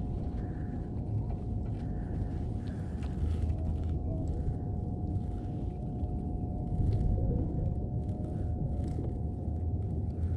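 Steady low wind rumble on the microphone, with water sloshing and slapping against a kayak hull at irregular short intervals.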